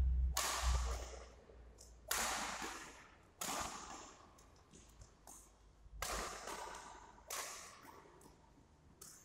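Badminton rackets striking a shuttlecock during a doubles rally: about five sharp cracks one to two and a half seconds apart, each echoing in the hall, with a few fainter hits between. A low thud sounds at the very start.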